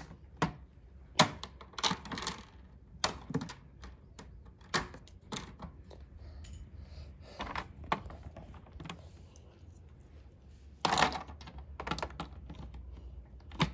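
Plastic LEGO minifigures and bricks clicking and tapping on a LEGO baseplate as they are moved and set down, in irregular light knocks.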